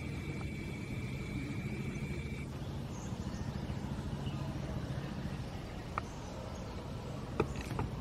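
Steady low background rumble, with a thin high steady whine over the first two and a half seconds and a few sharp clicks near the end.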